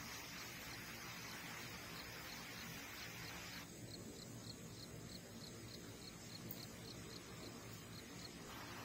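An insect chirping in a steady, even rhythm of about five short chirps a second, typical of a cricket. It sounds over a faint steady hiss that falls away about four seconds in.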